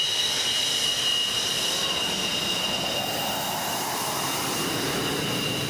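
Twin Klimov RD-33 turbofan engines of a MiG-29 taxiing at low power: a steady high-pitched turbine whine over a rushing exhaust, with a rising rush starting about three seconds in.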